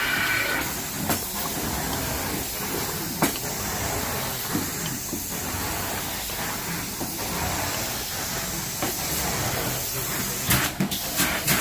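Carpet cleaning machine running with a steady hiss, with a few sharp knocks near the end.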